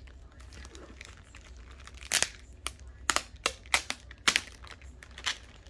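Clear plastic wrap on a rolled diamond painting canvas being picked at and pulled, crinkling: soft rustling at first, then a run of sharp crackles from about two seconds in.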